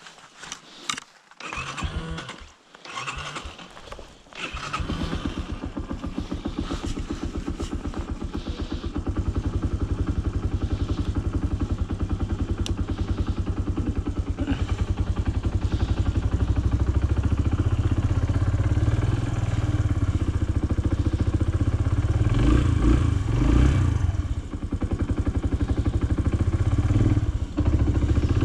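Farm motorbike engine starting about four seconds in after some handling clatter, then running steadily, with the revs rising and falling as it moves off.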